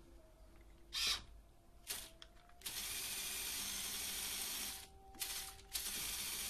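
Lego Technic buggy's fast black L-motor, its reduction gear removed, whirring its geartrain: short blips about one and two seconds in, a steady run of about two seconds, then more short runs near the end.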